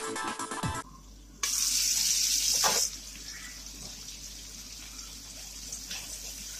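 Garlic, onion and tomato sizzling in oil in a frying pan as they sauté. The sizzle is loud for about a second and a half, starting a little over a second in, then settles to a steady, quieter sizzle while the pan is stirred.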